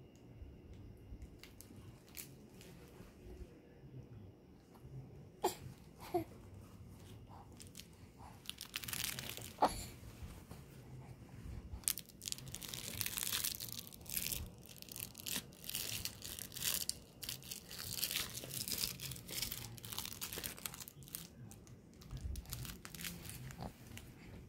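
Crinkling and rustling of a soft baby toy being handled and squeezed, coming in irregular bursts that grow busier about halfway through, with a few sharp clicks.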